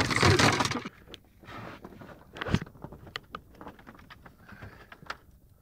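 Handling noise aboard a rubber inflatable boat. It opens with a loud rustling burst of about a second, followed by scattered light clicks and one dull thump about two and a half seconds in.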